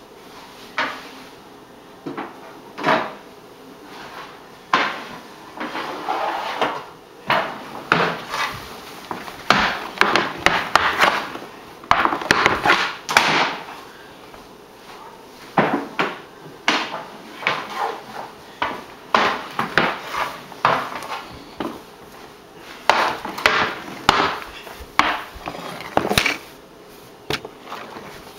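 Hockey stick blade clacking and knocking against a hardwood floor during indoor stickhandling and shooting, in uneven flurries of sharp knocks with short lulls.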